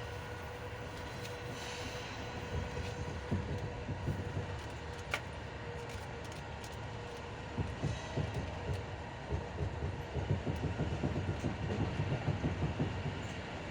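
Passenger carriage wheels knocking over rail joints and switches as the train pulls away from the station, over a steady running hum. The knocks come in irregular clusters at first and grow dense from about halfway through.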